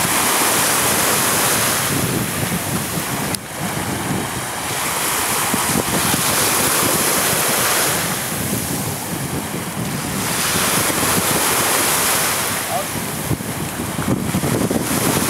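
Wind buffeting the camera microphone over the wash of choppy sea water, swelling and easing in gusts every few seconds.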